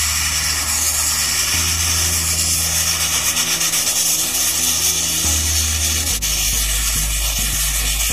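Sandblasting nozzle spraying abrasive against a steel dump-truck body: a steady hiss. Under it, background music with low bass notes changing every second or two.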